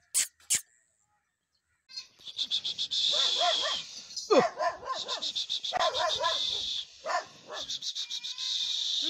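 Pakistani bully kutta dog giving short barks and whining calls in repeated bursts, one sliding steeply down in pitch, over a steady high fluttering hiss. A few sharp clicks come at the very start, before a second of silence.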